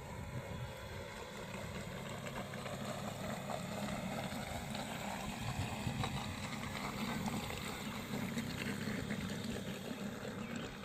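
Radio-controlled model boat running on the water, its motor a steady hum with water noise, growing a little louder midway.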